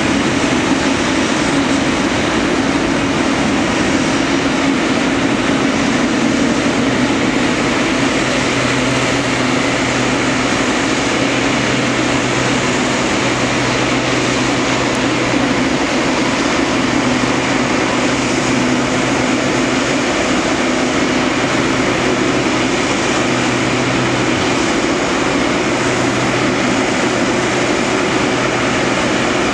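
Boeing 777-300ER's twin jet engines running steadily at low taxi power, a continuous roar with a low steady hum.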